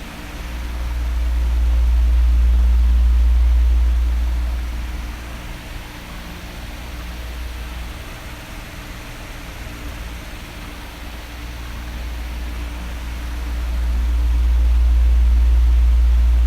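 Electric oscillating fan running: a steady hiss of moving air with a faint hum, and a low rush of air that swells up twice, about thirteen seconds apart, as the fan head sweeps toward the microphone and away again.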